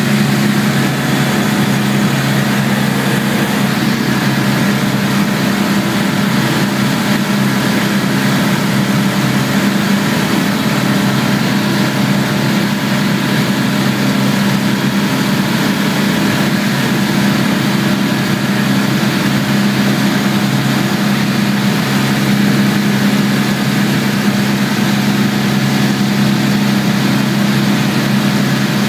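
Light aircraft's piston engine and propeller running steadily in flight, heard from inside the cockpit, a constant drone with no change in pitch.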